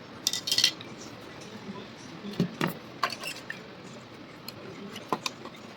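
Small hard parts and tools clinking and tapping as they are handled, a scatter of sharp clicks with the loudest clatters about half a second in and again around two and a half to three seconds in.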